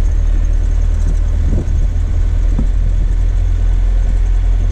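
Van driving along a dirt road: a steady low rumble of engine and road noise, with wind on the microphone.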